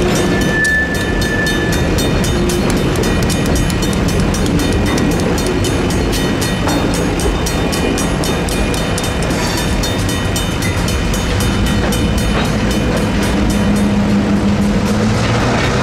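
Safetran mechanical crossing bells ringing in rapid, even strokes as a Union Pacific freight train rolls slowly through the crossing. GP38N diesel locomotive 637 shoves tank cars ahead of it, with the rumble of the wheels on the rails and the steady run of the locomotive's diesel engine underneath.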